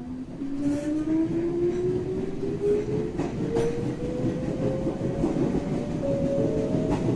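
Electric train's traction motor whining as the train accelerates, one tone rising steadily in pitch, over the rumble of the running car. A few sharp clicks from the wheels crossing rail joints.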